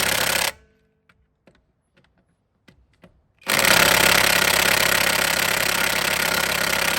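Cordless impact wrench hammering on a tight front brake bolt through a socket on an adapter. A burst cuts off about half a second in, a few faint clicks follow, then a second long burst starts about three and a half seconds in.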